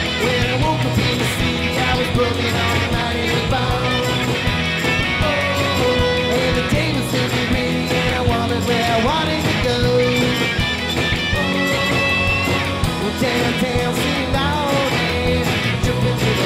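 Rock song with guitar and a sung vocal, playing continuously as a soundtrack.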